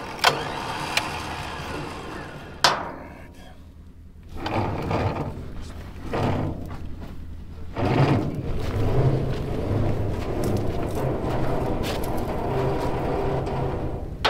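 Two sharp clicks at a truck-mounted winch, then footsteps on dirt and the synthetic winch rope being pulled out by hand, over a low steady engine hum.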